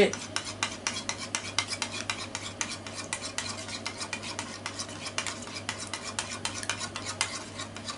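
A raw egg being beaten in a small bowl: a utensil whisks round and clicks against the bowl several times a second, steadily.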